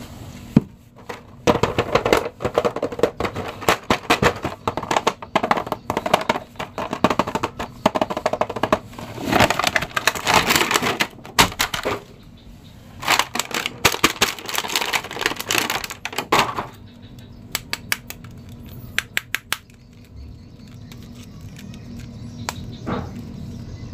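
Plastic blister tray and cardboard window box being handled as an action figure is unboxed: rapid crackling, crinkling and clicking of thin plastic in bursts, going quieter with only scattered clicks for the last several seconds.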